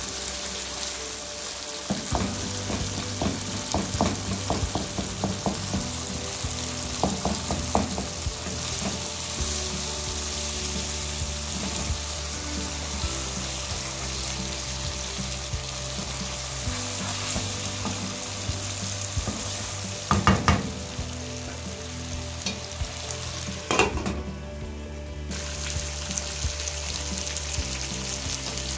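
Chicken pieces sizzling steadily as they fry in oil in a non-stick wok, while a wooden spatula stirs and scrapes them, giving scattered clicks and knocks against the pan, busiest in the first several seconds and again a few times later on.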